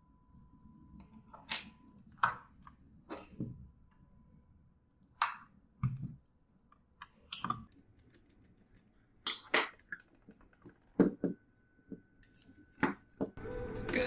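Scattered sharp clicks and knocks, about a dozen at irregular intervals, from a small screwdriver, an mSATA SSD and the case and top cover of a mini PC being handled on a tabletop.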